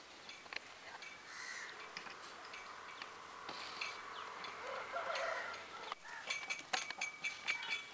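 Birds calling, crows and farm fowl among them. Near the end comes a quick run of sharp clicks and ticks.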